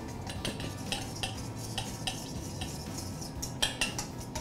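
A utensil stirring a vinaigrette in a small stainless steel bowl, with light metal clinks a few times a second and two sharper clinks about three and a half seconds in.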